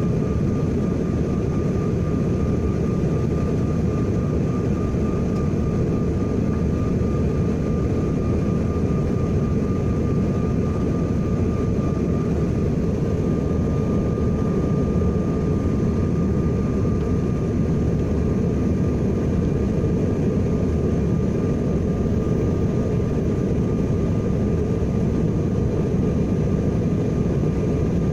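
Steady in-flight cabin noise of a Bombardier CRJ1000 regional jet: a constant low rush of engine and airflow noise with a faint steady whine on top, unchanging throughout.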